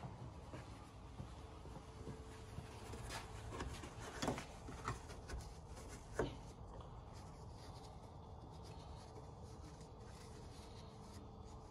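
Faint rubbing and handling with a few light clicks and knocks, from hands working at a car's hood strut mount and hinge, the old grease there being wiped away.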